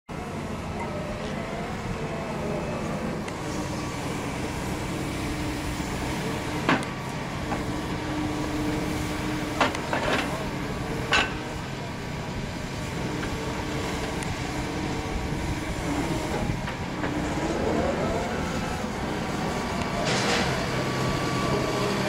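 Construction machinery engine running steadily, with a few sharp metallic knocks in the middle.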